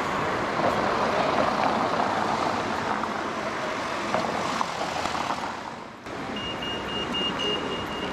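Street traffic, with cars driving past in a steady wash of engine and tyre noise. About six seconds in the noise drops away and a pedestrian crossing signal starts beeping, a high steady tone in quick even pulses.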